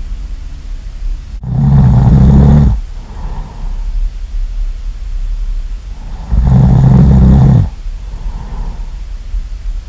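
Loud snoring: two long, low, buzzing inhale snores about five seconds apart, with soft exhales between them. A steady low hum runs underneath.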